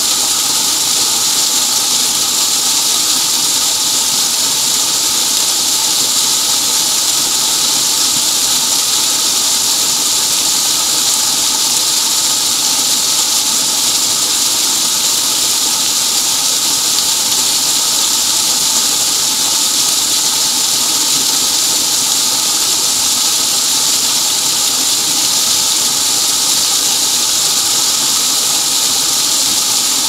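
Fast-flowing creek water cascading down a narrow rock chute: a steady, loud rush with a bright hiss, unbroken throughout.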